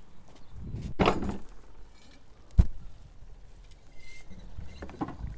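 Cast-iron Dutch oven handled with a pot hook and set down on its metal stand: a knock about a second in, then a sharper, louder iron clank about two and a half seconds in.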